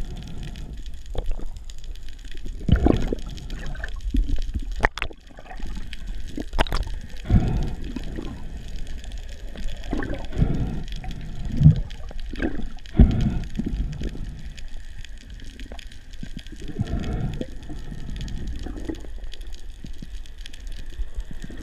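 Underwater sound through a GoPro housing: irregular low rushes and thumps of water as the diver moves, with whales singing in the background.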